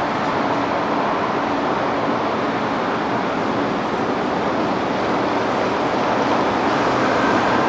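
Boeing 777-200LR's GE90 turbofan engines running as the jet taxis away, a steady jet rumble that swells slightly near the end.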